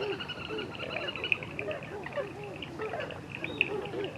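Many birds calling at once: a dense chorus of short, overlapping low arched calls with quick high chirps repeating above them.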